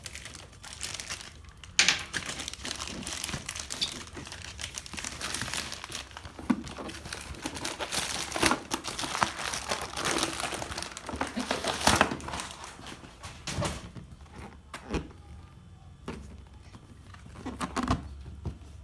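Packaging being unwrapped: plastic and paper crinkling and rustling, with sharp knocks from handling. About three-quarters of the way through it quietens to a few separate knocks.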